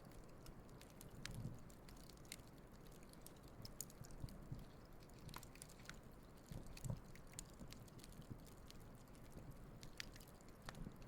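Campfire of burning wood crackling faintly: scattered sharp pops and snaps over a low steady rumble, with a couple of soft low thumps.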